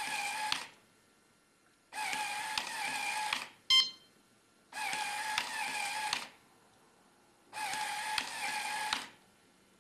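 CADD-Prizm infusion pump's motor whirring in repeated bursts of about a second and a half, roughly every three seconds, as it primes the line with fluid. A short beep sounds once, a little before four seconds in.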